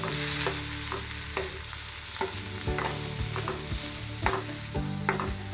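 Chopped onions, tomatoes and green chillies sizzling in oil in a stainless steel pan while being stirred and sautéed. A spatula scrapes and clicks irregularly against the pan.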